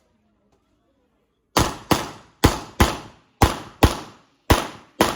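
Eight gunshots fired as four quick double taps, starting about a second and a half in, the two shots of each pair under half a second apart and the pairs about a second apart.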